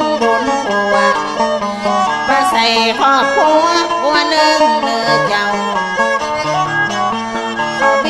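Northern Thai sor music from Nan in an instrumental passage. A bowed salo fiddle plays a gliding melody with plucked strings, over a steady low drone.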